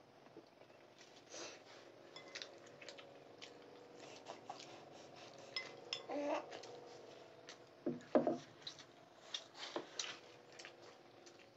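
A metal spoon clinks and scrapes against a small ceramic bowl as a toddler eats rice, in scattered light clicks with a few louder knocks about six and eight seconds in.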